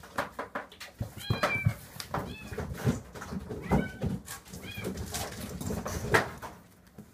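A kitten mewing in short, high arched squeaks, four of them, while scuffling with a plush toy: soft bumps and scrabbling on the mat throughout, with a sharper knock about six seconds in.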